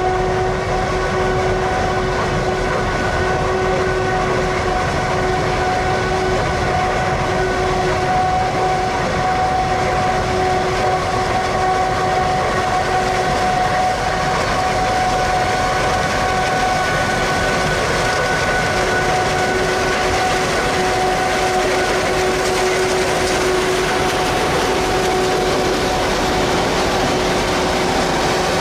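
Claas Jaguar 990 forage harvester chopping maize: a loud, steady machine noise with a constant whine held throughout.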